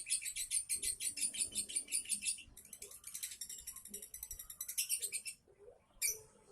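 Lovebird giving its rapid, high-pitched 'minor' chatter, about ten notes a second, which keepers take as a sign that the bird is about to go into 'konslet' (the frantic breeding-excitement song). The chatter stops a little after five seconds in, and there is one short burst about a second later.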